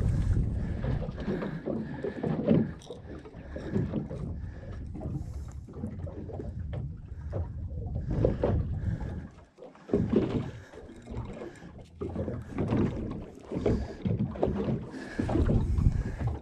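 Wind buffeting the microphone with water slapping against the hull of a boat at sea: an uneven low rumble that rises and falls, dropping out briefly about ten seconds in.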